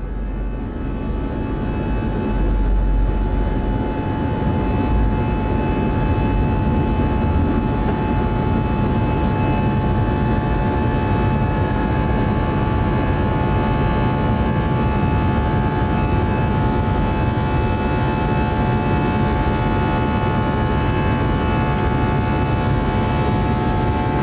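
Airbus A320's jet engines at high power during takeoff and climb, heard inside the cabin: the noise swells over the first few seconds and then holds a steady, loud roar with several steady whining tones over it. A deep rumble underneath fades about four seconds in.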